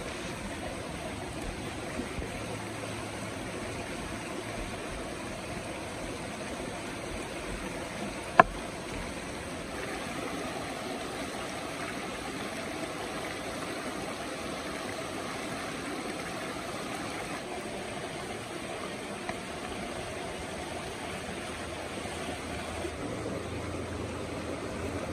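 Steady rush of a shallow river flowing over rocks, with one sharp knock of a knife striking a wooden cutting board about eight seconds in.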